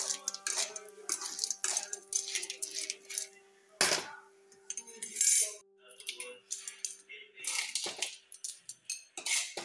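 A metal ladle stirring and scooping clams in their shells in an aluminium wok, with many quick clinks and scrapes of metal and shell, and one louder knock about four seconds in. Background music with held notes plays underneath.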